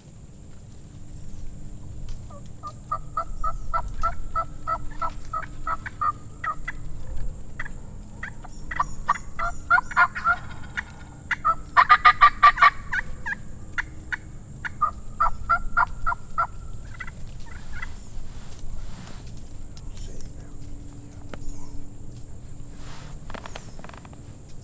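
Wild turkey calling in four runs of evenly spaced notes, about three a second, with the loudest, densest run about halfway through.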